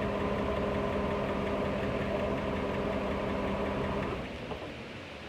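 Chevy engine idling with a steady whine from its failing alternator, then dying about four seconds in. The engine quitting is the sign that the alternator is not charging.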